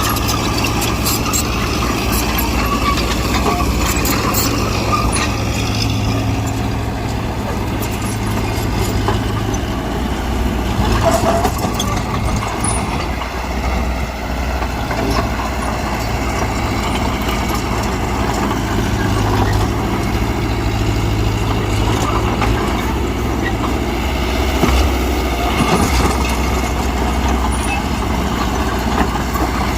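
Diesel engine of a Mitsubishi BD2G bulldozer running steadily, with scattered short clanks and knocks.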